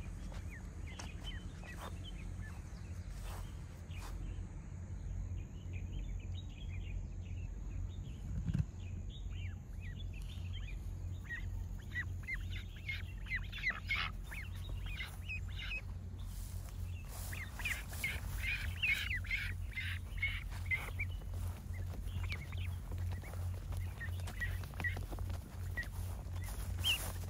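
A flock of domestic ducks and ducklings calling as they walk: many short peeps and quacks, growing busier partway through, over a steady low rumble.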